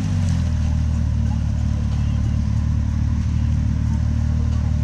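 Side-by-side UTV engine running steadily at low revs, close by, with creek water rushing around it.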